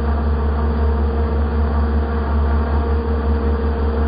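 An RC boat's motor running steadily, recorded from a phone mounted on the boat's deck: a steady whine of several held tones over a heavy low rumble and water noise.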